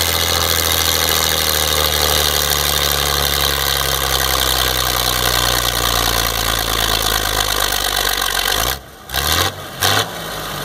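Oliver 1750D tractor's six-cylinder diesel engine running hard under load while pulling a weight-transfer sled, its steady note sagging slightly in pitch. About nine seconds in, the sound drops out sharply and then comes back in two short loud spurts.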